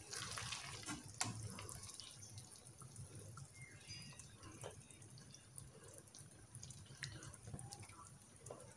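Faint scrapes and taps of a serving spoon in a pan as chicken in a thick, creamy curry is dished onto a plate, with scattered small wet clicks.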